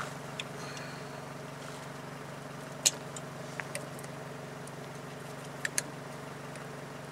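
A few short, sharp metal clicks from pliers squeezing the locking tab of an ABS sensor line's clip on a truck's front steering knuckle, over a steady low hum. The loudest click comes about three seconds in, and a quick pair follows near the end.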